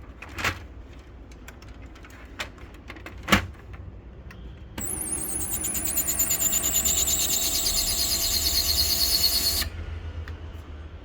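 Canon imageCLASS LBP122dw laser printer: a few clicks, then about five seconds in its mechanism runs for about five seconds with a loud, high-pitched, fast-warbling whine over several steady tones, and stops suddenly. This is the abnormal noise the printer is being repaired for.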